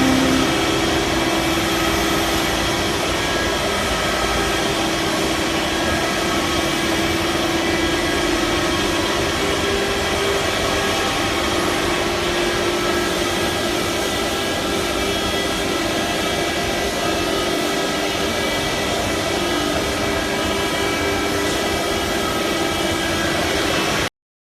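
CNC stone-engraving router running steadily: a constant motor whine with a rushing hiss, which cuts off suddenly near the end.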